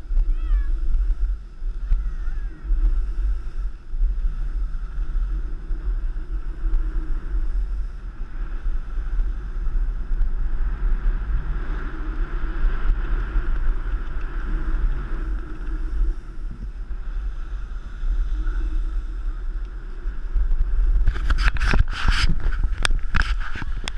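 Wind buffeting the camera microphone while riding down a snowy slope, a steady low rumble with the hiss of sliding on snow. A quick run of sharp knocks comes near the end.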